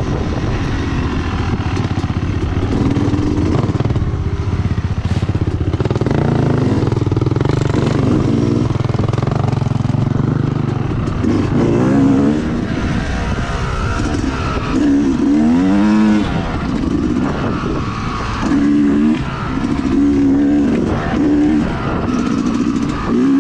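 Two-stroke Yamaha YZ250X dirt bike engine, heard from the rider's own bike, running continuously under trail riding, its pitch rising and falling again and again as the throttle is worked on and off.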